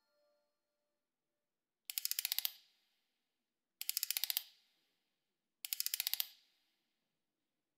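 Clockwork wind-up key being turned three times, as when winding a music box: each turn is a short burst of rapid ratchet clicks, the three turns about two seconds apart.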